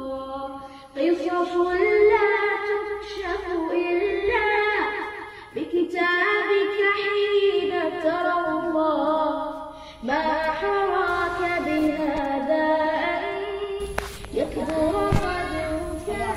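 Background music: a song with a sung melody carried in long, held phrases.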